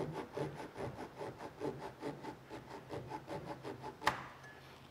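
Thin flush-trim pull saw held flat on the wood, sawing off a glued-in wooden bung flush with the surface in short rasping strokes, about three or four a second. A single sharp click a little after four seconds in, then the strokes stop.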